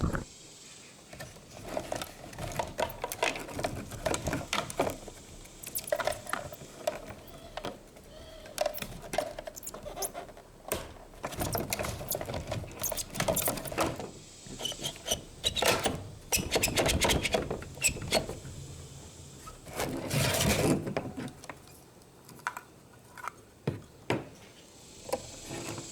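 Plastic and metal parts of a car fuel pump module clicking, tapping and scraping as they are handled and clipped back together. There is a longer, louder scraping rustle about twenty seconds in.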